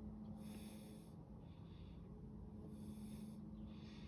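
Quiet, slow, regular breathing close to the microphone, each breath in or out lasting about a second, over a low steady hum.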